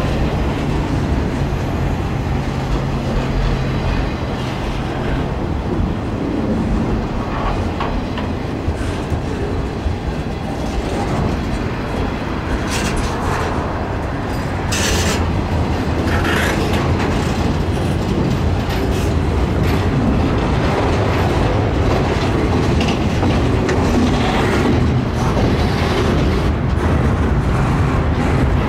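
Freight cars of a circus train rolling slowly past close by: a steady rumble of wheels with clickety-clack over the rail joints. There are a few short, sharper squeals and clanks near the middle.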